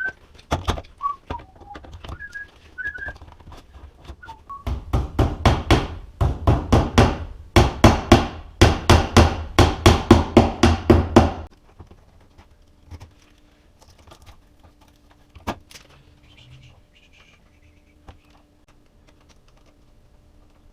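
A short whistled tune, then a fast run of sharp knocks, about five a second, lasting some seven seconds and stopping abruptly. A faint steady hum remains after the knocking stops.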